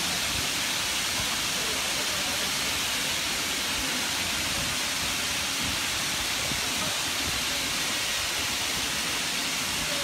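Natural gas rushing out of a ruptured gas pipe, a steady unbroken hiss.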